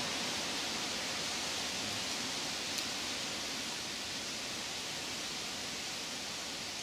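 Steady, even high-pitched hiss of dry-forest ambience, with one faint click a little under halfway.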